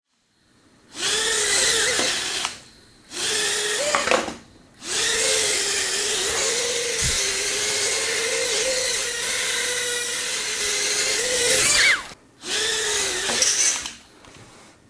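Tiny indoor micro quadcopter's motors whining as it flies, the pitch wavering up and down around one steady note with each throttle change. It spools up four times, with short breaks between: once briefly, again briefly, then a long run of about seven seconds, then a short one near the end.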